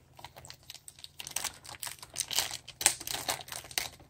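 Clear plastic packaging bags crinkling and crackling as hands handle the bagged speaker parts: quick irregular crackles, sparse at first and denser from about a second in.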